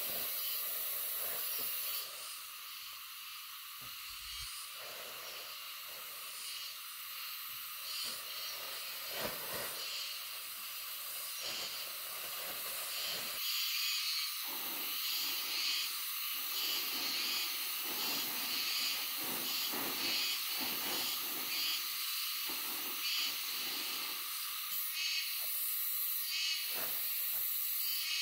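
A steady high-pitched hiss, with rustling of a plastic tarp being spread and handled from about halfway in.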